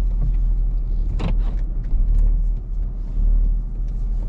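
Car engine idling, a steady low rumble heard from inside the cabin. A few faint clicks and one brief sharper sound about a second in ride over it.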